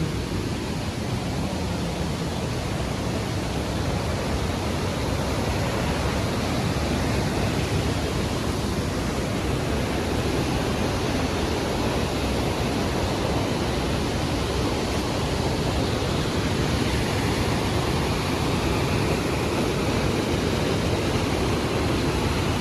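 Waterfall in heavy flow: a steady, even rush of falling water.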